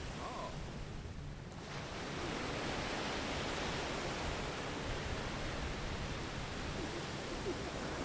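Ocean surf washing onto a sandy beach: a steady rush of breaking waves that swells about two seconds in as a wave breaks, then carries on evenly.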